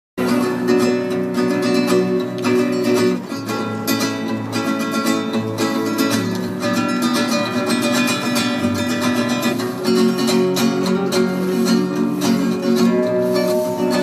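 Acoustic guitar playing the instrumental introduction to a song, a run of plucked notes and chords.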